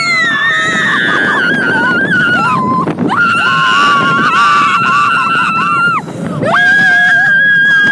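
Riders screaming on a roller coaster: three long, high, held screams, one after another, over the continuous rumble of the ride.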